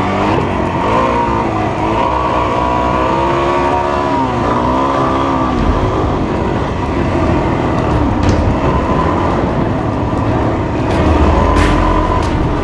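Suzuki DR-Z400 single-cylinder four-stroke engine running under way, its pitch rising and falling with throttle changes during the first half, then steadier. Wind buffets the microphone near the end.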